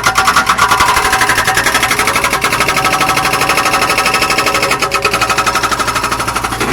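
Zoomlion excavator working, giving a fast, even clatter of sharp metallic strikes, several a second, over a steady engine hum; the clatter starts abruptly.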